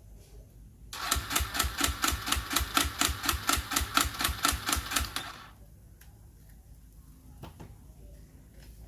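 Kawasaki D-Tracker 125 being cranked on its electric starter for about four seconds, an even rapid chugging of about five beats a second, and the engine does not catch.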